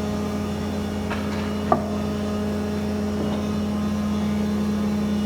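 QMB 206 F-H/K double-sided thickness planer running with a steady hum, with one sharp knock about two seconds in.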